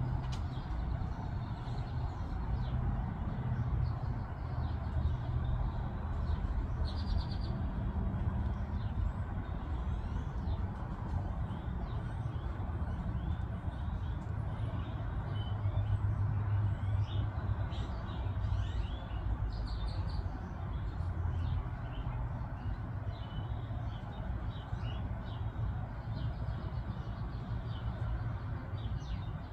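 Birds chirping, short high calls scattered throughout, over a steady low rumble.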